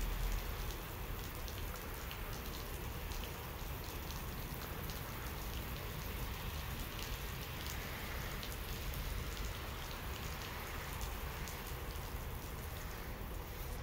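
Snow-melting pipe nozzles in the asphalt spraying water that splashes steadily onto the wet, slushy pavement, with many small droplet ticks.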